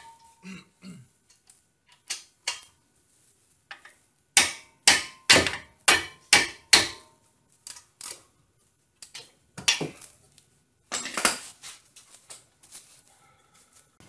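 Hammer blows on a wrench fitted to a Brembo front caliper's mounting bolt, sharp metal-on-metal clanks in runs. The loudest six come at about two a second around the middle, with lighter strikes after and a heavy cluster near the end. The hammer is tightening the reused caliper bolts in place of a torque wrench.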